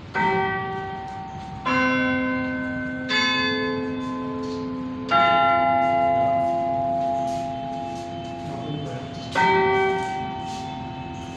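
Tower clock's chime bells striking a slow sequence of five notes on different bells, each stroke ringing on and fading under the next.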